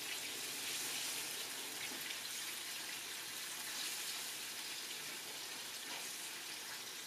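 Chicken stock and honey mustard sauce bubbling at a boil in a frying pan while being whisked with a silicone whisk: a steady hiss.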